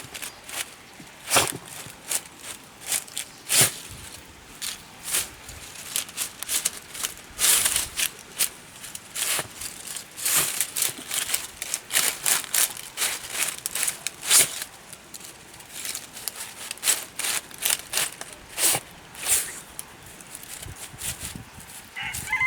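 Irregular rustling and crackling of dry ground and plant debris as a small ratter terrier searches and roots about along a scent trail, in short uneven bursts.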